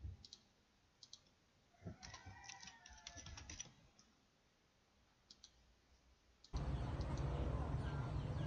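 Computer keyboard keystrokes as a password is typed: a quick run of clicks about two seconds in, with a few single mouse or key clicks before and after. A steady low background noise comes up suddenly near the end.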